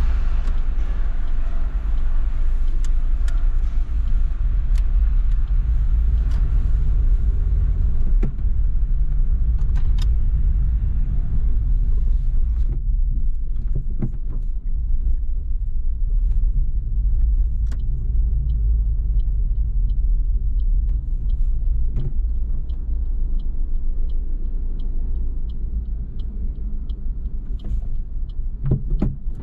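Suzuki Swift Sport ZC32S's 1.6-litre M16A four-cylinder engine and road rumble heard from inside the cabin as the car drives at low speed. From about halfway in, a light, even ticking comes in at about one and a half ticks a second.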